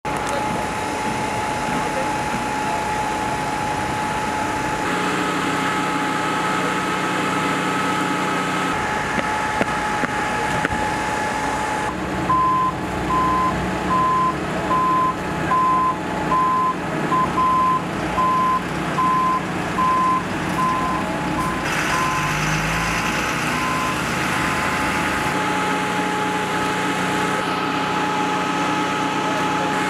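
Truck engine running steadily with a constant whine over it, and a reversing beeper sounding in regular beeps, a little faster than once a second, from about twelve seconds in for roughly twelve seconds.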